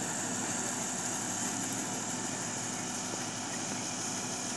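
Heavy diesel road-construction machines idling, a steady continuous engine sound with no changes in speed.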